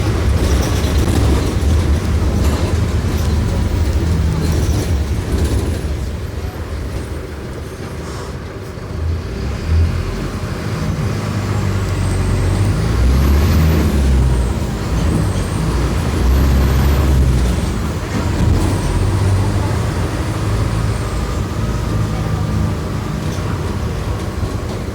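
Mercedes-Benz OF-1418 bus's OM-904LA turbo-diesel engine running under load. The engine eases off about six to nine seconds in, then pulls hard again, with a high whistle rising and falling as it accelerates.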